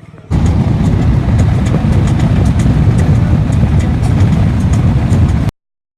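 Loud, steady low noise of a car moving on the road. It starts abruptly and cuts off suddenly near the end.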